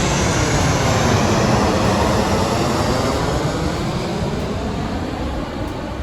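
Ocean wave breaking close by and washing up the beach: a loud rushing hiss that comes in suddenly and slowly dies away over several seconds.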